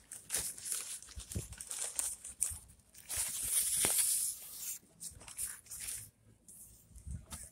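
White packing paper rustling and crinkling as it is pulled away from a boxed citrus plant, in a run of irregular bursts that is loudest about three to five seconds in and thins out near the end.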